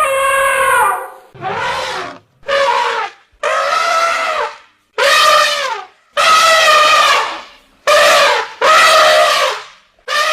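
Elephant trumpeting: a rapid series of about eight loud, brassy trumpet calls, each around half a second to a second and a half long, with short gaps between them.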